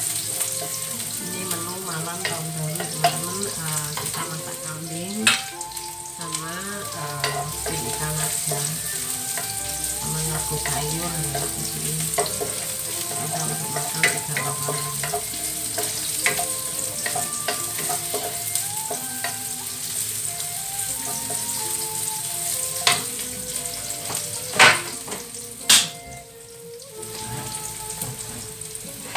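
Chopped garlic, shallots and ginger sizzling in hot oil in a frying pan as they are stirred with a wooden spatula, with a few sharp knocks, the loudest two near the end.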